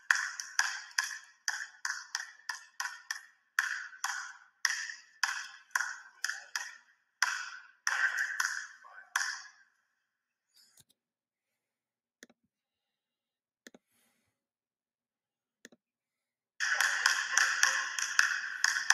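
A basketball dribbled on a hardwood gym floor, about two bounces a second, each with a ringing echo, stopping about halfway through. After a few faint taps, dribbling starts again near the end, louder and quicker.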